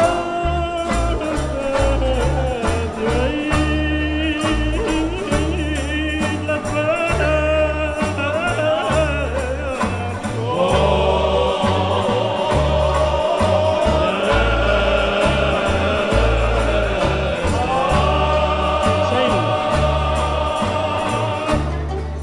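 Cape Malay Nederlands song: a male lead singer's ornamented, gliding vocal over acoustic guitar with low bass notes underneath. About halfway through, other men's voices join in as a chorus.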